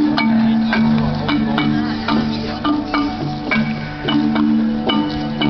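Live music: short struck notes that ring on briefly, like mallet percussion, over sustained low notes.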